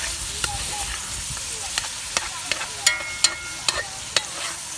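Food frying in a pan: a steady sizzle with scattered sharp pops and clicks, and a brief high ringing tone about three seconds in.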